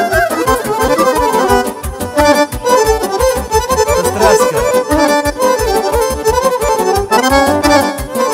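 Instrumental break in Romanian party dance music: an accordion plays a fast melody over a steady beat.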